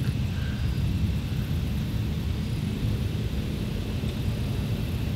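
Steady low rumble of wind on the microphone, with no distinct events.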